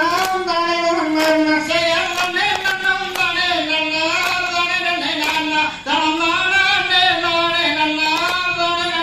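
Singing of a valli kummi folk song: one melodic line that glides up and down without pause, with a sharp beat keeping time about once a second.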